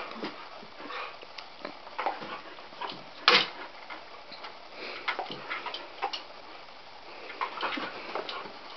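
A cat toy that squeaks whenever it is moved, giving irregular short squeaks and clicks as a small dog jumps and paws at it. One louder, sharper sound comes about three seconds in.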